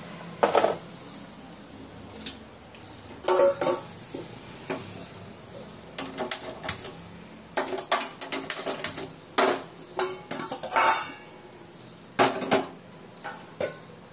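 Kitchen dishes and metal utensils clinking and clattering on a counter in irregular knocks and scrapes while coffee is being made.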